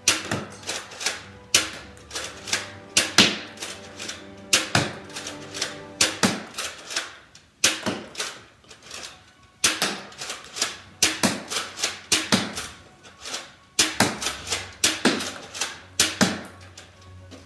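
Nerf Elite Crossbolt blaster being primed and fired over and over: plastic clacks of the prime handle pulled back and pushed forward, and the snap of each shot, in quick clusters. Background music runs underneath.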